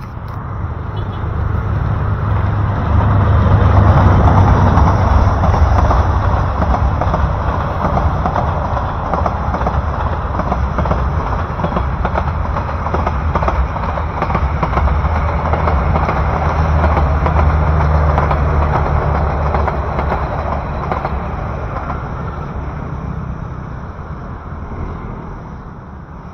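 Diesel-hauled passenger train passing close by: the locomotive's engine hum is loudest a few seconds in, then the coaches' wheels keep up a steady rolling rumble on the rails that fades away near the end.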